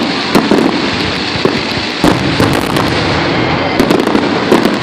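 Fireworks going off in quick succession: a dense, continuous crackle packed with many sharp pops.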